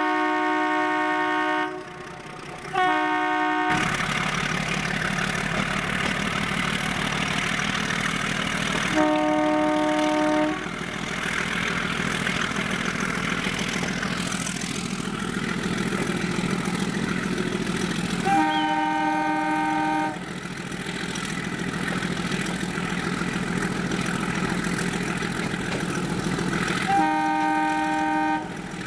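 Multi-note horn of a YDM4 metre-gauge diesel locomotive sounding five times: a blast that ends near the start, a short toot about three seconds in, then longer blasts of one to two seconds roughly every eight to nine seconds. Under the horn runs the steady drone of the locomotive's diesel engine and the noise of the moving train.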